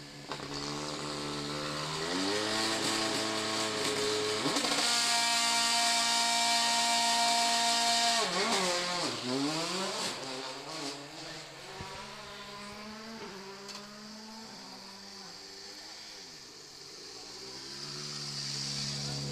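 Volkswagen Polo R WRC rally car's turbocharged 1.6-litre four-cylinder engine held at revs on the start line, then launching and accelerating hard away through the gears, its pitch climbing and dropping at each shift before fading into the distance. Near the end a second rally car's engine approaches and grows louder.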